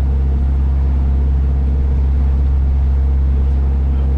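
Water taxi's engine droning steadily as the boat cruises, a deep even hum heard from on board, over the rush of the wake along the hull.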